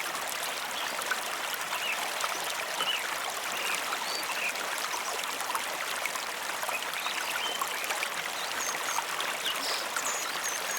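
A stream of water running steadily, with birds chirping in short calls scattered throughout.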